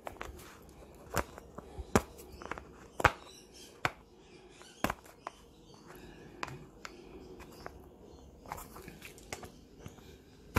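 Irregular light clicks and knocks of handling, a few sharper than the rest, over a faint room background.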